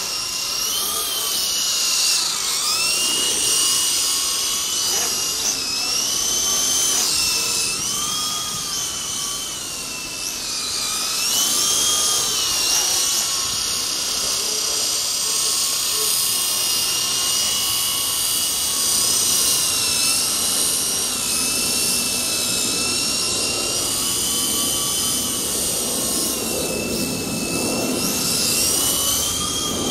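Double Horse 9116 RC helicopter flying, its electric motor and rotor making a steady high whine that rises and dips in pitch every second or two as the throttle is worked.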